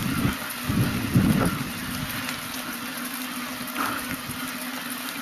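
Wind rushing over the microphone of a moving bicycle, with heavy gusty buffeting in the first second and a half, then a steadier rushing hiss.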